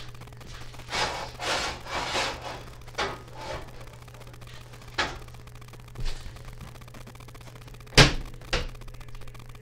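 Kitchen handling noises at the stove and counter: a few seconds of rubbing and scraping, then scattered single knocks, the loudest two close together near the end.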